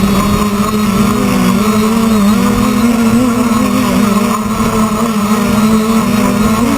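Quadcopter's electric motors and propellers buzzing steadily in flight, the pitch wavering slightly up and down.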